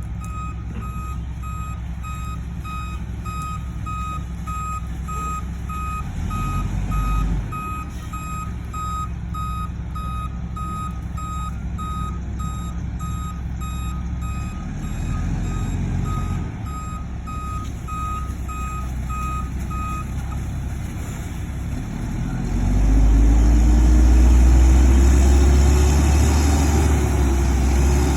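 Concrete mixer truck reversing: its backup alarm beeps about once a second over the steady run of its diesel engine, then the beeping stops and the engine revs louder, its pitch rising and falling, near the end.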